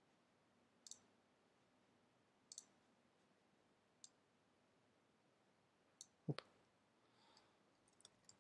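A few faint, separate clicks of a computer mouse, about one every second or two, with one louder click about six seconds in and a quick cluster near the end; otherwise near silence.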